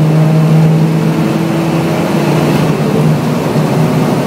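Mercedes-Benz 180E's engine pulling under acceleration down a straight, heard from inside the car over wind and tyre noise. The steady engine note breaks up about three seconds in.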